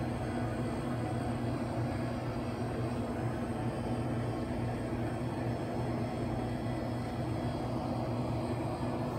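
Indoor swimming pool hall ambience: swimmers splashing over a steady low hum.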